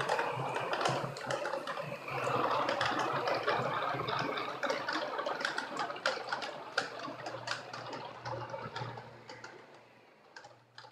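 Pepper humanoid robot driving across a parquet floor on its wheeled base: a rattling noise of motors and wheels with many small clicks and a low hum underneath. It grows fainter over the last few seconds as the robot moves away.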